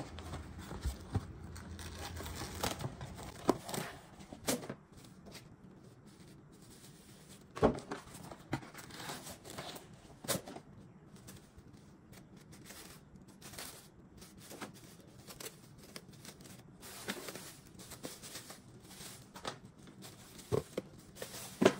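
Plastic cling wrap being pulled off the roll, torn on the box's cutting edge and crinkled as it is wrapped around a paint tray and roller. Faint, irregular rustling with scattered sharp crackles.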